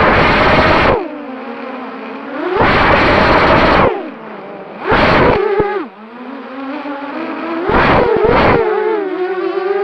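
3D-printed quadcopter's electric motors and propellers whining, the pitch rising and falling as the throttle changes. Four loud rushing bursts of noise cut in and out, about a second in, near three seconds, near five seconds and near eight seconds.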